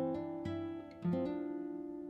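Background music: acoustic guitar playing a few slow plucked notes, each ringing and fading.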